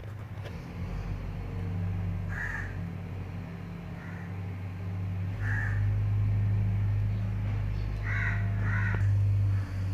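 A steady low hum with short, harsh bird calls, caw-like, a few times: about two and a half, five and a half, and twice near eight to nine seconds in.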